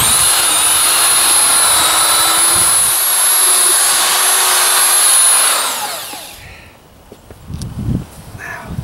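Power drill turning a paddle mixer through a tub of damp Thermix chimney insulation mix, running at a steady high whine, then released about five and a half seconds in and spinning down. Near the end, faint crumbling as hands work the damp mix to check its consistency.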